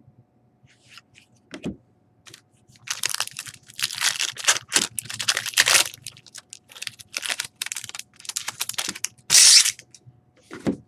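Clear plastic wrapper on a trading card pack being torn open and crinkled: a run of crackling rustles, with a louder burst about nine and a half seconds in. A soft knock on the table comes a couple of seconds in.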